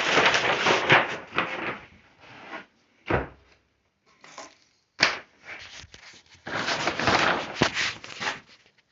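Sliding and rubbing handling sounds, like a drawer or a bench part being moved, with a low thump about three seconds in, a sharp click about five seconds in, and another long slide near the end.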